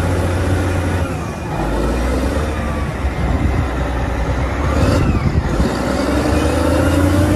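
Caterpillar 990 wheel loader's V12 diesel engine working under load, a steady low drone with its revs rising and falling.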